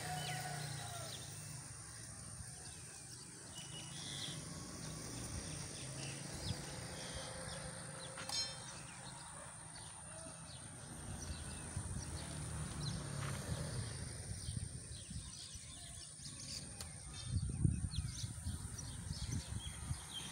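Quiet farmyard ambience: birds chirping now and then over a low rumble, which grows louder about three-quarters of the way through.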